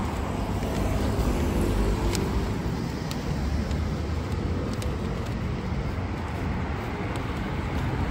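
Street ambience of steady road traffic.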